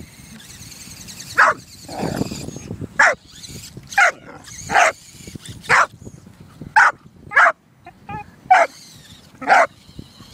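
Pit bull barking at a remote-control toy truck: about nine sharp barks, irregularly spaced about a second apart.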